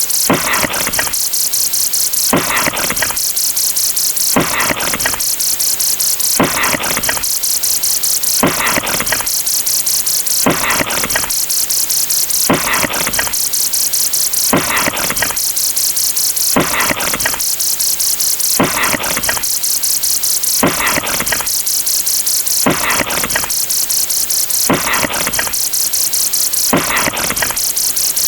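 Looped counting sound effects: a steady, high-pitched rattling hiss made of rapid ticks, with a second effect repeating evenly about every two seconds.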